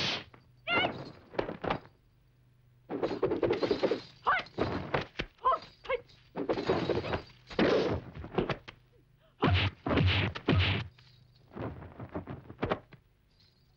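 Film fight sound effects: blows and whooshing strikes land in quick bursts with short pauses between them, mixed with brief shouts from the fighters.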